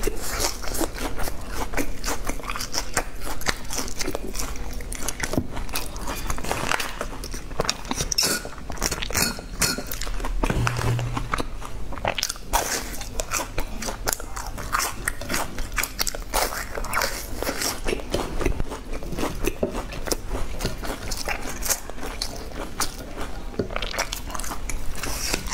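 Close-miked biting and chewing of crumb-coated deep-fried balls: a dense, unbroken run of crisp crunches as the fried crust breaks between the teeth.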